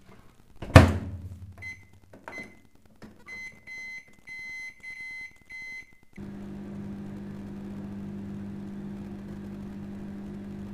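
Microwave oven door shut with a thump, then a string of keypad beeps as the time is set, and the oven starts running with a steady low hum.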